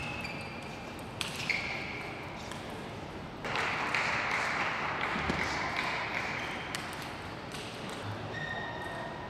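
Table tennis ball being struck by rubber-faced bats and bouncing on the table during a rally, in sharp clicks, some with a short high ping. In the middle there are a few seconds of steady louder noise.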